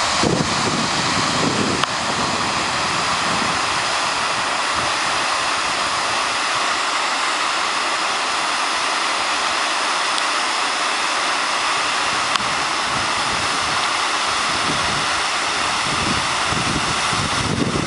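Hollow Falls, a waterfall in flood after days of heavy rain, roaring in a loud, steady rush of falling water. Wind buffets the microphone in low gusts near the start and again near the end.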